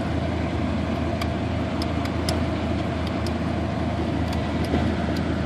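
Steady hum of the car's ventilation blower fan running with the ignition on, with a few faint clicks scattered through it.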